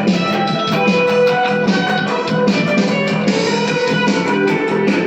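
Music led by strummed guitar, with a steady beat.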